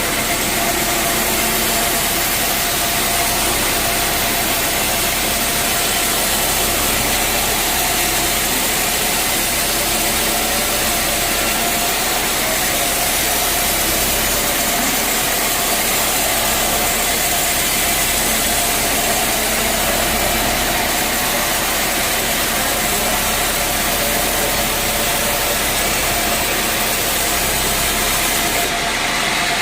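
Sawmill machinery running steadily: an even, loud mechanical noise with a faint steady hum.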